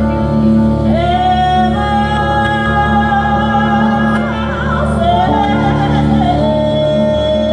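Live band music with a woman singing long held notes that slide up into pitch and waver, over a steady sustained bass and keyboard bed.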